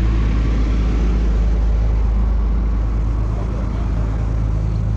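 Road traffic with a motor vehicle engine running close by: a steady low engine rumble over passing traffic noise, easing slightly about three seconds in.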